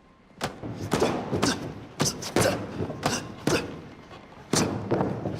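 A rapid series of sharp knocks or thuds, about two a second, pausing briefly around four seconds in.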